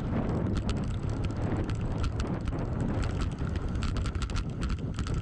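2020 Voodoo Bizango hardtail mountain bike riding down a dirt trail: the tyres rumble over the ground while the bike gives off a steady stream of sharp rattles and clicks. Wind noise on the microphone.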